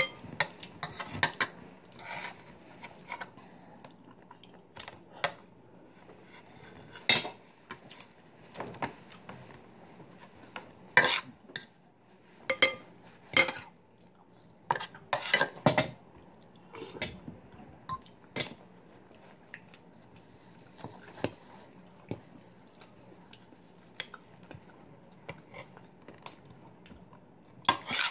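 Metal forks and spoons clinking and scraping against white ceramic soup bowls and plates while eating, in irregular sharp clinks with a few louder ones scattered through.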